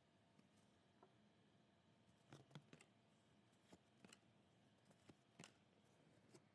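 Near silence with a few faint clicks of trading cards being handled, about five over a few seconds.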